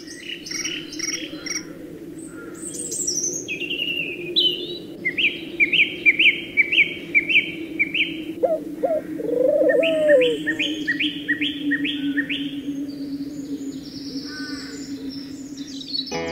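Songbirds singing, with several overlapping birds chirping short phrases of quickly repeated notes over a steady low hum. A lower, warbling call comes in about two-thirds of the way through.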